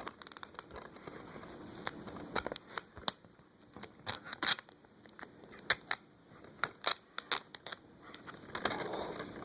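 A sticker and tape being picked and peeled off a plastic-wrapped DVD case, giving scattered small clicks and crinkles of plastic.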